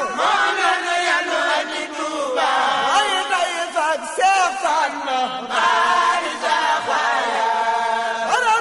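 Mouride devotional chanting: several voices singing sacred verses together in melodic lines that rise and fall.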